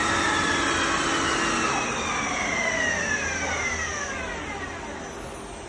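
2013 DynaPath FB16 CNC flatbed lathe's spindle winding down from full RPM: a whine that falls steadily in pitch and fades away.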